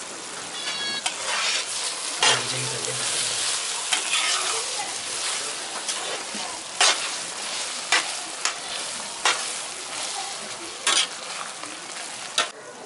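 Thick kadai paneer gravy sizzling and bubbling in a large iron kadai while it is stirred with a perforated metal ladle, which knocks against the pan about nine times at uneven intervals.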